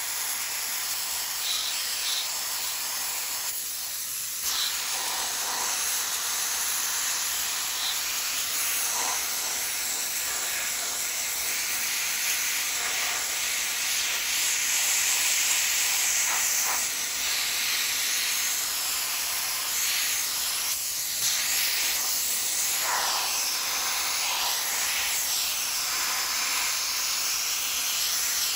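Handheld sandblaster gun blasting abrasive grit onto a cast iron vise body: a steady hiss of compressed air and grit, stripping the part down to clean metal.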